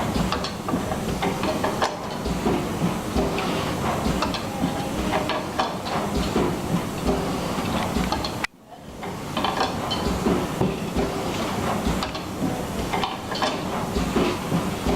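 Pneumatic pad printing machine running, with a steady air hiss and irregular mechanical clacking. The sound drops out for an instant about halfway through, then resumes.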